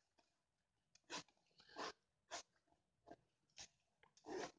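Handling sounds from a small bicycle saddle bag: about six short rasping scrapes and rustles, each a fraction of a second, as its zipper is tugged. The zipper seems to be sticking or too short to open easily.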